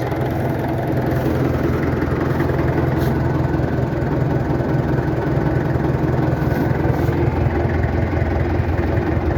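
International BTD6 crawler's BD-264 four-cylinder diesel engine idling steadily.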